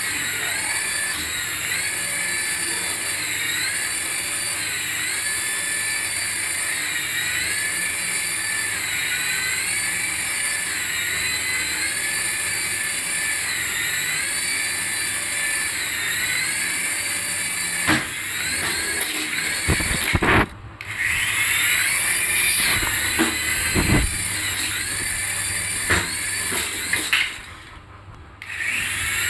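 A radio-control toy's high whine. Its pitch dips and comes back up in a regular cycle about every two seconds. In the last third, knocks and clicks of handling come in, and the whine cuts out briefly twice.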